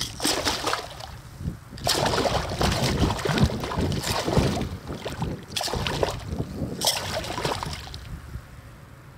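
A hooked pike thrashing and splashing at the surface close to the bank while it is being played in: repeated bursts of splashing, the longest in the middle, dying down near the end.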